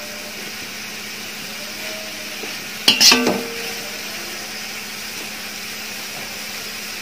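A perforated metal spoon stirring vegetables and masala in a metal pot, over a steady sizzle of frying. About three seconds in the spoon strikes the pot once with a sharp clink that rings briefly.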